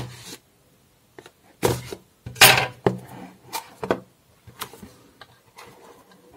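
Cardboard phone box being handled: a string of short scrapes and taps as the box is pushed, slid and turned over. The loudest is a longer scrape about two and a half seconds in.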